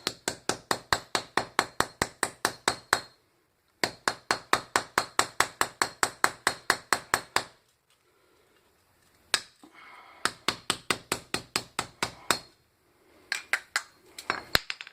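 A hammer pounding a hollow sterling silver handle to crush the resin filling inside, in quick runs of about seven blows a second. There are short pauses between the runs and a single blow in one of them.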